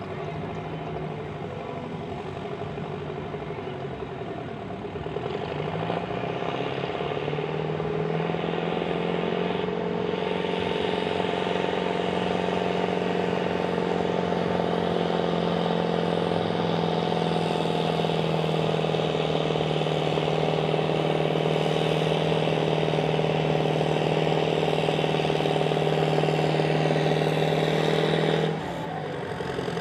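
Antique tractor engine pulling the sled at full throttle. The engine note climbs over the first several seconds and then holds steady under load. Near the end it drops off abruptly as the throttle is cut at the end of the pull.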